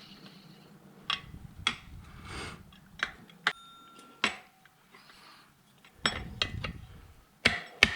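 Metal tire levers clinking and knocking against a spoked motorcycle rim as the last tire bead is worked on, a handful of separate clinks. Near the end, hammer blows begin at about two a second, driving the last bit of bead over the rim.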